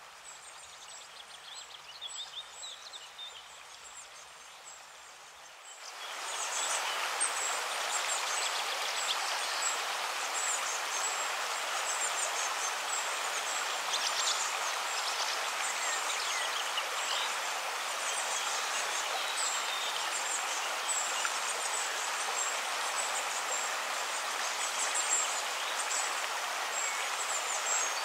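Steady outdoor ambience: an even rushing noise with birds chirping high above it. It comes in suddenly about six seconds in, after a quieter stretch with a few faint chirps.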